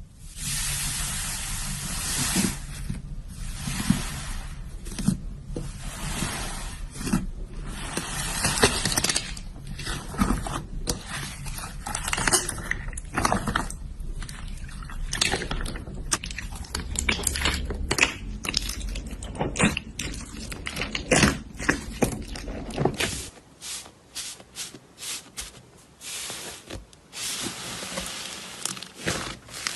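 Slime being squished and pressed by hand: stretches of wet crackling broken by many sharp sticky pops and clicks, thinning to separate pops near the end.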